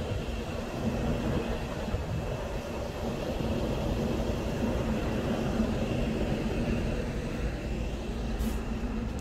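Rooftop air-conditioning and ventilation units humming steadily: a constant low drone with a faint high whine above it, over a low rumble.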